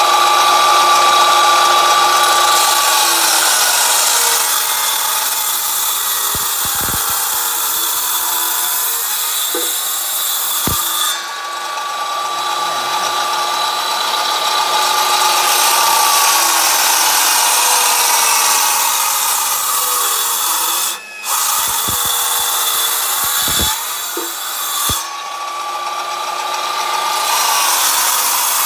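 Twin circular saw blades of a double-blade woodworking saw ripping a wooden plank: a loud, steady whine over a cutting hiss. The pitch sags and recovers as the load on the blades changes, and the sound drops out briefly about three quarters of the way through.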